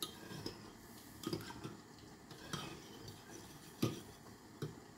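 Metal spoon stirring milk and plain yogurt in a bowl, with a few light clinks of the spoon against the bowl.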